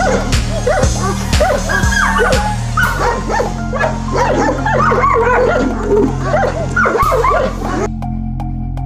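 Several Kangal shepherd dogs barking and yelping excitedly in quick succession, roused by a drone flying overhead, over background music. The barking stops about eight seconds in, leaving only music with a steady beat.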